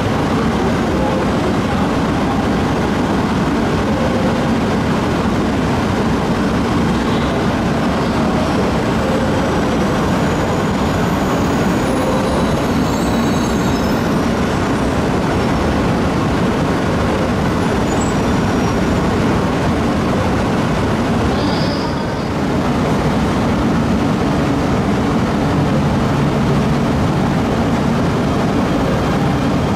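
E926 East-i Shinkansen inspection train standing at a station platform, its on-board equipment running with a steady loud hum. There is a brief dip in level about two-thirds of the way through.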